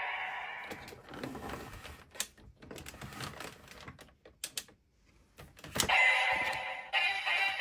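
Plastic clicks and rattles of a toy Kamen Rider transformation belt being handled and operated, with a sharper click just before the belt starts playing electronic music near the end.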